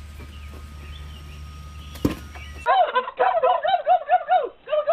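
A turkey calls in a quick run of about ten repeated notes, about six a second, starting near the middle. Before it there is only a faint hum and a single click.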